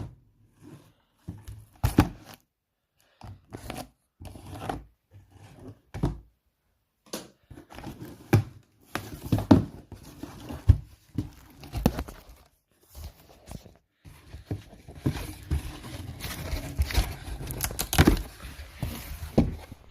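A package being torn open by hand: irregular ripping, crinkling and handling noises, sparse at first and almost continuous for the last six seconds.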